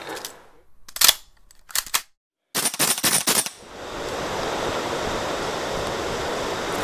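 Airsoft gun shots: a few sharp cracks about a second in and again just before two seconds, then a quick string of shots around three seconds after a brief drop-out. A steady rushing noise then takes over.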